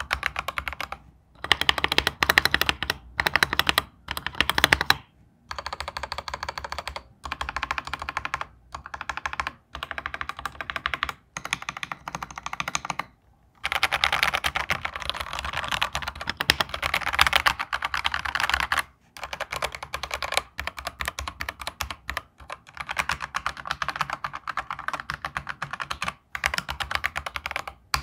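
Typing on an Akko 3098B mechanical keyboard with ASA-profile keycaps: quick runs of key clacks lasting a second to several seconds, broken by short pauses.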